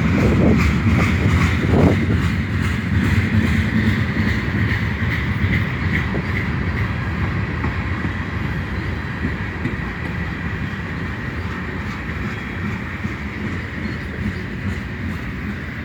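Canadian Pacific mixed freight train's cars rolling past on the rails: a steady wheel rumble with a thin high ringing tone, slowly getting quieter.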